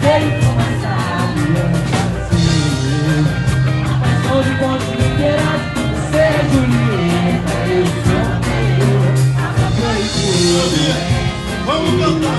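Samba band playing, with voices singing a melody over dense, driving percussion.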